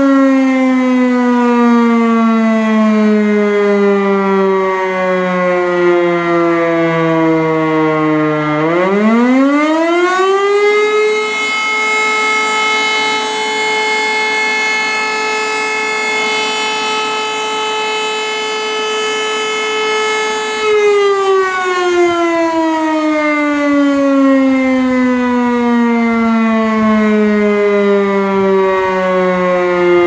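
E57 motor-driven civil defence siren winding down with a steadily falling pitch. About 8–9 s in it spins back up, holds a steady tone for about ten seconds, then winds down again. This on-and-off steady tone is the pattern of the interrupted fire-alarm signal (Feueralarm).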